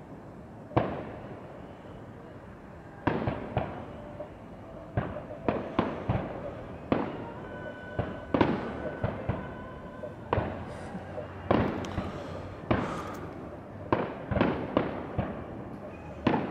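Aerial firework shells bursting: an irregular run of about twenty sharp bangs, several close together in quick clusters, each trailing off in an echo.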